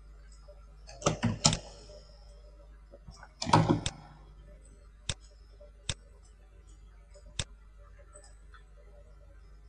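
Computer mouse and keyboard clicks while working at a PC: a few quick clusters of clicks in the first four seconds, then three single clicks spaced out over the next few seconds, over a faint steady low hum.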